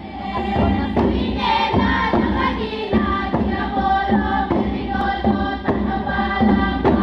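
Background music with choral singing, fading in at the start.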